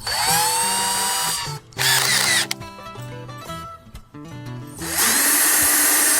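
Electric drill running in three bursts, the first spinning up with a rising whine, as holes are drilled with a small twist bit.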